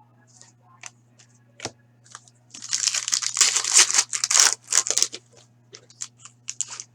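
Trading card pack wrapper being torn open and crinkled, with a dense stretch of tearing and crinkling in the middle and small clicks and rustles of cards being handled around it.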